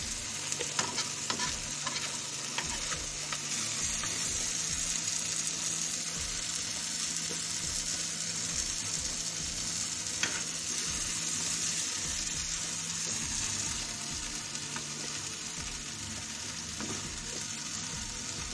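Marinated chicken pieces sizzling steadily in sauce in a frying pan, stirred with a slotted spatula that scrapes and clicks against the pan a few times near the start and once about halfway through.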